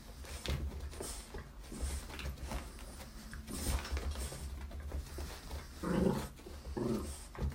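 Small dog panting and giving short play vocalisations while wrestling a kitten, with scuffling on carpet. Two short, louder calls come near the end.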